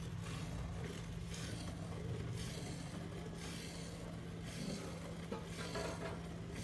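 Water buffalo being milked by hand: a run of short hissing squirts as jets of milk hit the froth in a steel bucket, repeating about every half second to one second.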